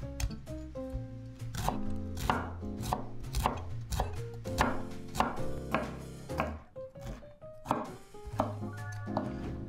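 Chef's knife chopping broccoli on a wooden cutting board: a steady run of sharp chops, roughly one every half second, over background music.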